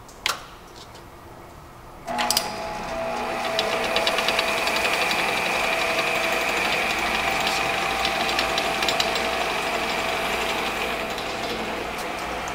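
A click about a quarter-second in, then a Monarch 10EE toolroom lathe powering up about two seconds in: its spindle drive comes up to speed and runs steadily with a whine and a light rattle.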